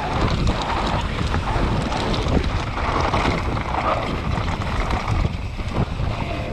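Wind buffeting the microphone of a mountain bike ridden fast down a dry dirt and gravel trail, over a steady low rumble of tyres on the ground, with many small clicks and rattles from the bike over bumps and stones.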